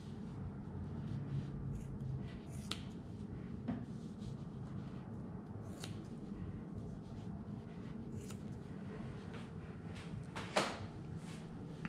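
Small grooming scissors snipping through thick angora rabbit wool: single short snips a second or two apart, irregular, with the loudest one near the end.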